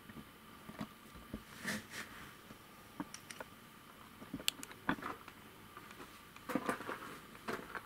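Faint, irregular small clicks and rustles, like handling noise, with a denser cluster near the end, over a faint steady hum.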